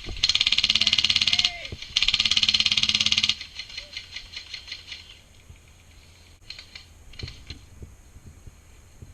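HPA-powered G&G airsoft light machine gun, run by a Wolverine Inferno Gen 2 engine, firing two full-auto bursts of rapid, evenly spaced shots, the first about a second and a quarter long, the second about a second and a half, with a short gap between. Faint clicks and rustling follow.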